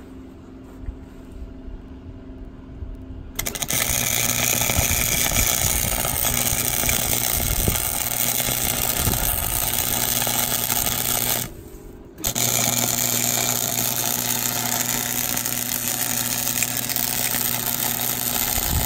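MIG welder arc crackling steadily as a bead is run on a steel square-tube T-joint. It starts about three seconds in after a low steady hum, breaks off briefly near the middle, then resumes until near the end.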